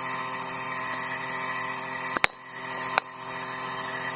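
Two sharp metallic clinks from the cut-open steel shell of a refrigeration filter drier being handled, the louder about two seconds in and a lighter one just under a second later, over a steady background hum.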